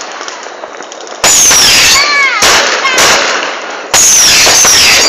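Fireworks going off very loudly, overloading the microphone: one blast about a second in and another near four seconds in, with falling whistling tones after the first.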